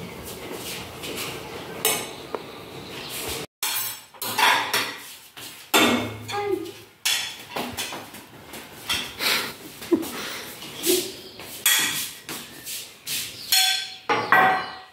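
Glasses, plates and cutlery knocked and clinked down one by one on a granite tabletop as a table is set, a run of sharp irregular knocks and clinks.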